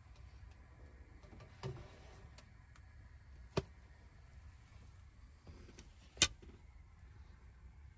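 A few light clicks and knocks from cookware being handled: a double-sided sandwich pan opened and French toast lifted out onto a plate. The sharpest knock comes about six seconds in, over a low steady background hum.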